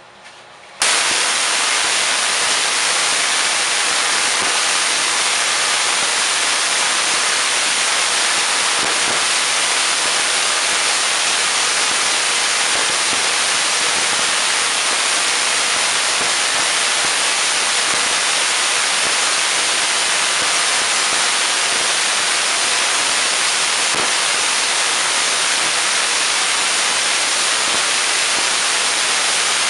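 6-inch spark gap Tesla coil switching on abruptly about a second in, then running with a loud, steady crackling buzz from its spark gap and the sparks streaming sideways off a breakout point on the toroid. The sparks reach about 4 feet out.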